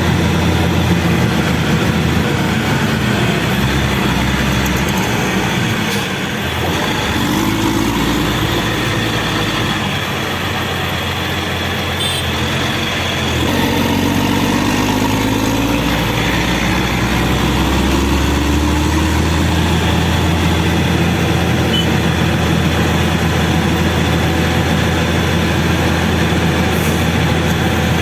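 Caterpillar 120K2 motor grader's diesel engine running as it travels on the road. The hum drops slightly about six seconds in, the engine note rises and falls a few times, and it settles back to a steady drone about halfway through.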